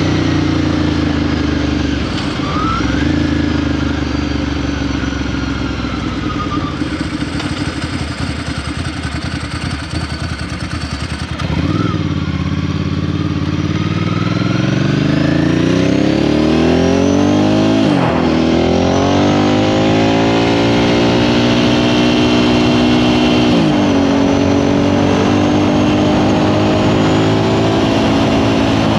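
Ducati Sport Classic Paul Smart's air-cooled L-twin engine heard while riding. It runs off the throttle with falling revs for several seconds, then accelerates hard with rising revs. There are two quick upshifts, the second about three quarters of the way through, and it settles into a steady cruise.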